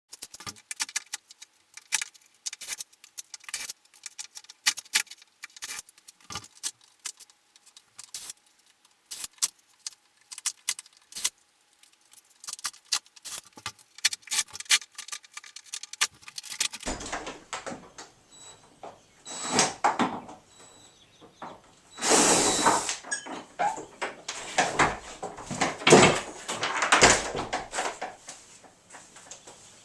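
Hand tools working the old flathead hinge screws out of a wooden door: many sharp metallic clicks and ticks. Partway through, louder bursts of scraping and knocking take over as the door is worked loose.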